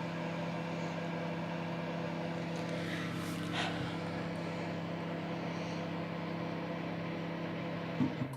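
Microwave oven running with a steady hum while heating, then shutting off with a click near the end as its cycle finishes.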